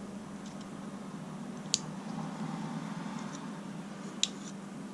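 Two short, sharp clicks about two and a half seconds apart as a Leatherman Wave multi-tool is handled, over a faint steady hum.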